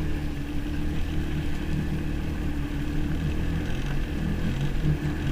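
Jet ski engine running steadily at low speed, with a constant hum.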